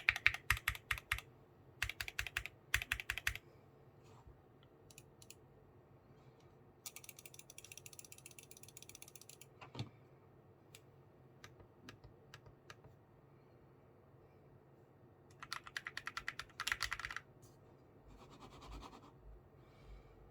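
Typing on a Keychron Q1 Knob aluminium mechanical keyboard with Gateron black linear switches and PBT keycaps. Fast runs of keystrokes alternate with slower single presses, with one duller thump about ten seconds in.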